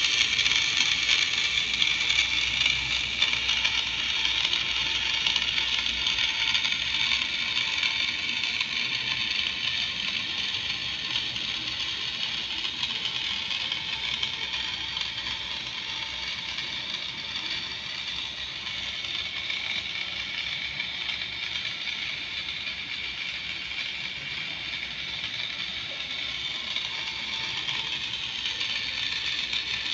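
Small electric motor of a rod-building drying stand, running steadily and turning a fishing rod in its chuck with a high whir and a faint gear chatter; it grows gradually quieter.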